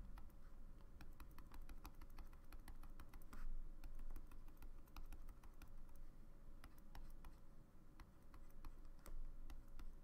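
A stylus tapping and scratching out short dashes on a drawing tablet: light, rapid, irregular clicks, over a faint steady hum.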